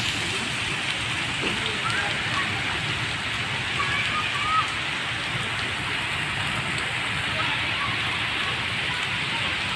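Heavy rain falling steadily on waterlogged ground and tree leaves, an even hiss without let-up.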